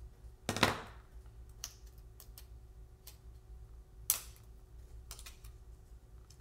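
Light clicks and crinkles of a small piece of adhesive craft vinyl being handled and peeled by hand, with a louder crinkle about half a second in and a sharp click about four seconds in.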